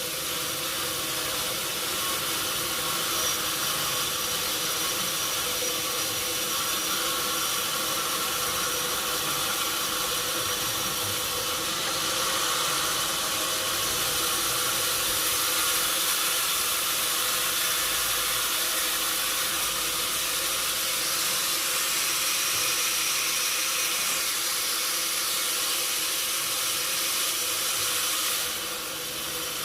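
Sawmill machinery running steadily: a hissing, mostly high-pitched mechanical noise with a faint steady hum beneath it, dipping briefly near the end.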